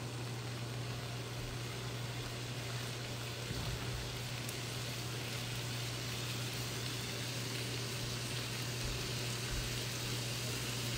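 Shrimp starting to fry in a pan on a butane hot plate: a steady, even sizzle, with a steady low hum underneath.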